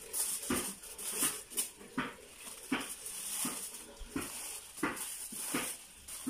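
Aluminium foil crinkling and crackling in short bursts, about one or two a second, as it is folded and pressed around food.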